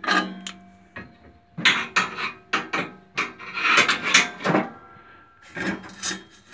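A brass welding ground clamp and a magnetic holder being worked off a steel practice stand: a sharp metal knock with a brief ringing at the start, then a run of uneven scrapes and knocks of metal on metal.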